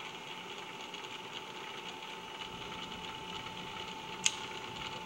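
Bridgeport Series I vertical milling machine humming steadily while its quill is lowered by hand with the quill feed handle, with one sharp click about four seconds in.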